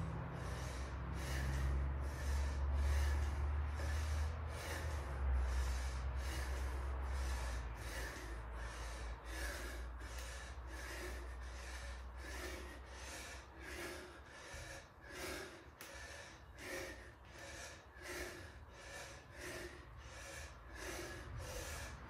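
A man breathing hard and fast after strenuous exercise, panting in quick, regular breaths, about one and a half a second. A low rumble runs under the breaths for the first several seconds.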